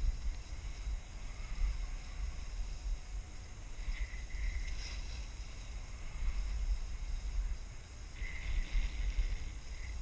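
Wind buffeting the microphone of a camera on a skier going downhill, a fluctuating low rumble, with the skis hissing and scraping over packed snow, louder about four seconds in and again from about eight seconds.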